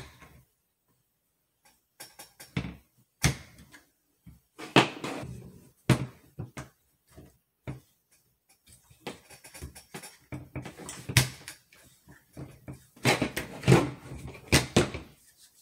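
Irregular clicks, knocks and scrapes of an American Tactical Omni Hybrid AR pistol being taken apart by hand. The upper receiver comes off the polymer lower receiver, and parts are handled and set down on a table. A cluster of louder knocks comes near the end.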